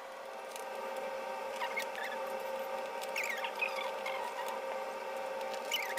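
Faint steady hum with a few short, high-pitched chirps and light scattered clicks.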